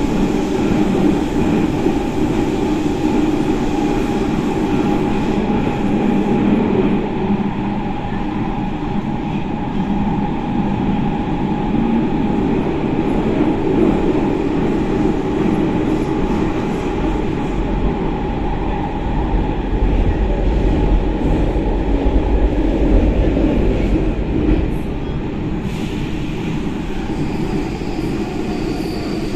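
Athens Metro train running between stations, heard from inside the carriage: a steady loud rumble of wheels on rail with a constant motor hum, the low rumble growing heavier about twenty seconds in.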